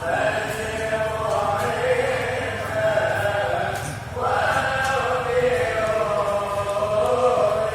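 Voices chanting a melody in long held notes, with a new phrase starting about four seconds in.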